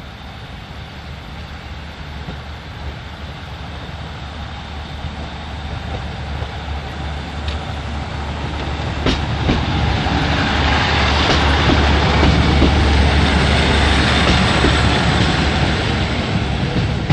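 Diesel passenger train pulling away and passing, its low engine drone and wheel noise building steadily to a peak near the end, with a few sharp clicks over the rail joints.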